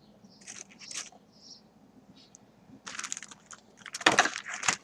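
Packaging being handled and opened: a few small rustles and clicks, then crinkling and tearing from about three seconds in, loudest just after four seconds.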